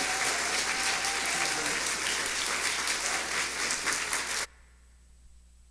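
Audience applauding, cut off abruptly about four and a half seconds in.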